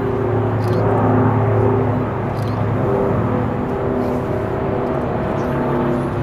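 Antonov An-70's four D-27 propfan engines with counter-rotating eight- and six-blade propellers, running at full power as the aircraft climbs out: a loud, steady propeller drone with several held low humming tones.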